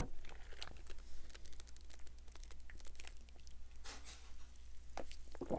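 Freshly poured diet ginger ale fizzing in a glass, a fine continuous crackle of popping bubbles. In the second half come a few louder sips and swallows as it is drunk.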